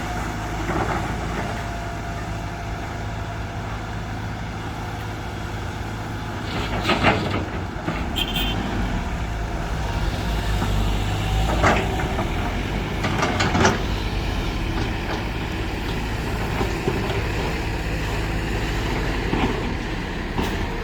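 Six-wheel dump truck's diesel engine running steadily under load, with a few sharp metal clanks and knocks.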